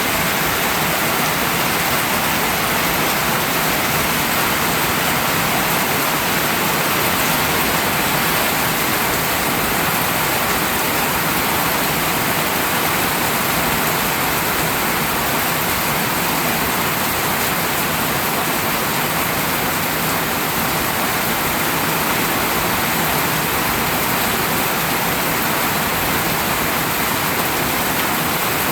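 Steady, heavy rainfall: a dense, unbroken hiss of rain coming down, with no let-up.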